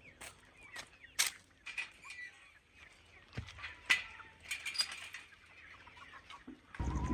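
Chickens clucking and chirping, with scattered sharp knocks. Near the end a steady low engine-like drone starts abruptly.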